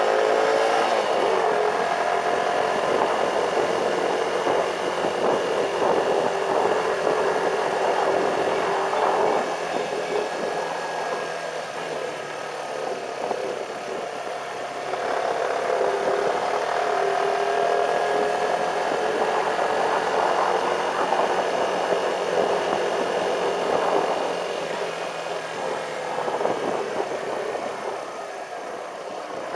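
Motorcycle engine running under way, with rushing wind and road noise. The engine note climbs as the bike accelerates right at the start and again about halfway through, and eases off twice between.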